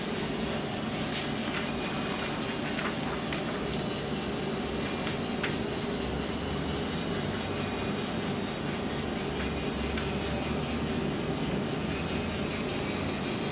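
LEGO Mindstorms NXT servo motor running steadily, turning the plotter's paper-feed rollers to draw a sheet in, with a few faint clicks.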